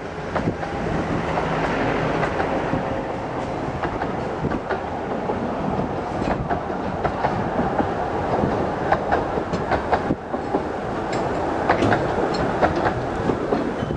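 15-inch-gauge miniature railway train passing close by: the red diesel locomotive's engine goes by first, then a long rake of coaches rolls past, wheels clicking irregularly over the rail joints.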